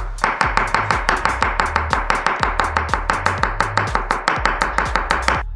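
Kitchen knife rapidly chopping a pickle into small pieces on a wooden cutting board, with quick, even strikes of about seven a second.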